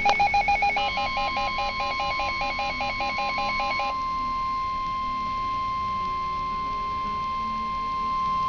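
A weather radio receiver sounding its alert: rapid pulsed beeps, about four a second, stop about four seconds in. Under them, about a second in, the NOAA Weather Radio 1050 Hz warning alarm tone starts and then continues alone as one steady high tone. This is the alarm tone that precedes a broadcast weather warning.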